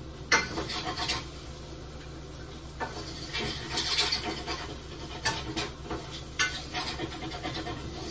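Intermittent clinks, scrapes and rubbing of pots, dishes and utensils being handled while boiled potatoes are peeled, with a sharp knock just after the start and a few more clicks later, over a steady low hum.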